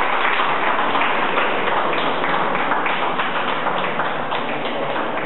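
Audience applauding, a dense patter of many hands clapping that slowly dies down.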